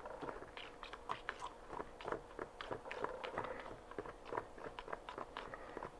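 Copper carbonate reacting with phosphoric acid, its foam fizzing and popping in faint, irregular little crackles, a few a second.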